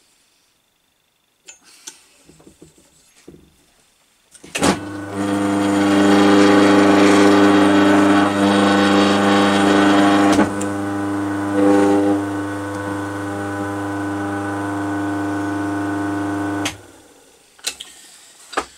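Single-phase Crompton Parkinson induction motor switched on with a click and running with a steady hum for about twelve seconds before it is switched off and cuts out. It runs without the fault noise it had before its repair. Quiet handling clicks come before and after.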